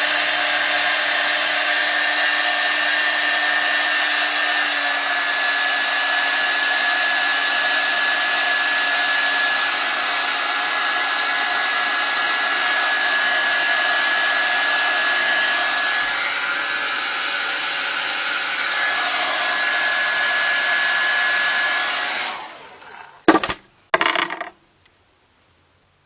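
Handheld hot-air blower running steadily on high, heating a sneaker's plastic heel cup to soften it, with a steady whine over its blowing noise. It is switched off about 22 seconds in and dies away, followed by two sharp knocks.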